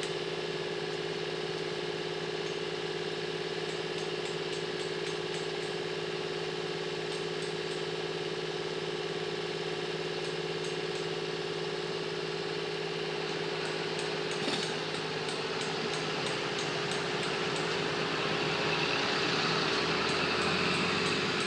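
An engine running steadily at a constant pitch, with faint clicking in short runs now and then. It grows a little louder and rougher over the last few seconds.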